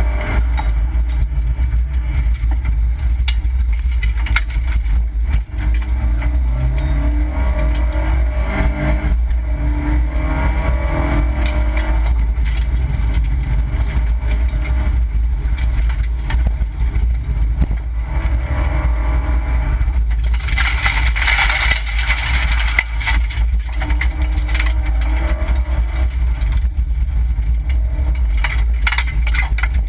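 Opel Corsa B rally car at full effort, heard from inside the cabin: the engine revs up and drops back again and again through the gear changes over a steady low rumble. For a few seconds past the middle a harsh hiss rises over the engine.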